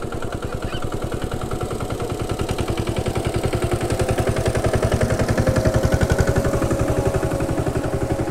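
A small engine running close by with an even, fast putter, growing louder to a peak about six seconds in and then easing off a little.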